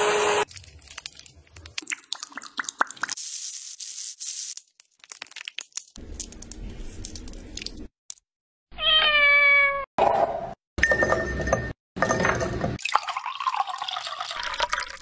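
A run of kitchen sounds: a hand blender running and stopping about half a second in, then clinks and scrapes, one loud cat meow about nine seconds in, and milk pouring into a glass near the end.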